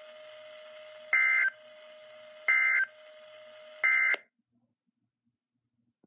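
EAS end-of-message data bursts (the NNNN code) from a Reecom NOAA weather alert radio's speaker: three short bursts about a second and a half apart over a faint hiss and a steady hum. The radio then mutes, marking the end of the alert message.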